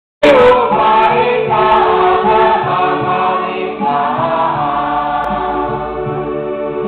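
Church congregation singing a hymn together, many voices at once; the singing cuts in abruptly right at the start.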